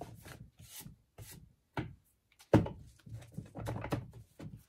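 Paper recipe cards and a binder being handled on a tabletop: sliding and rubbing, with a sharp knock about two and a half seconds in.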